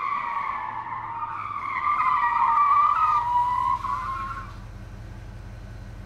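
A wavering high-pitched squeal that dips and rises a little in pitch and stops about four and a half seconds in, over a steady low hum that then carries on alone.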